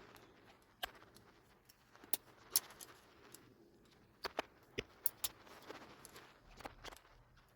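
Small metal clicks and taps, a dozen or so at irregular intervals, from a Squarebody Chevy pickup's glovebox lock cylinder being handled and worked apart by hand.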